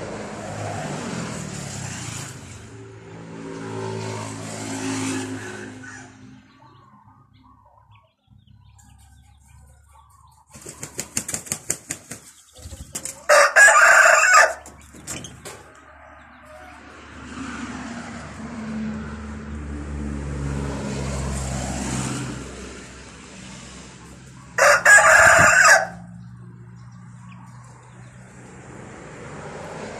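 Roosters crowing: several long calls near the start and again past the middle. Two loud, brief flurries about 13 and 25 seconds in fit a zebra dove's wings flapping as it comes to its nest.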